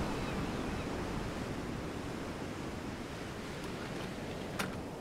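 Ocean surf washing in a steady rush that slowly fades away, with a faint click near the end.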